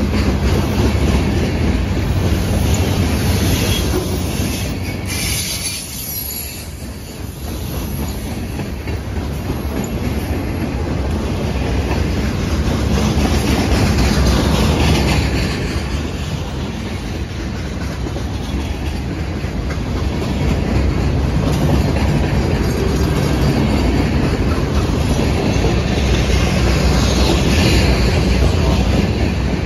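Freight cars of a CSX freight train rolling past on a curve: steady rumble and clatter of steel wheels on the rails, with wheel squeal against the curved rail coming and going. The sound dips briefly about six seconds in.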